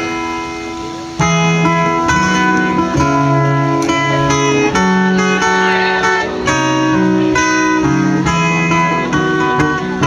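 Live band playing an instrumental passage of a Thai pop ballad, led by acoustic guitar with held melody notes over it and no singing; it swells louder about a second in.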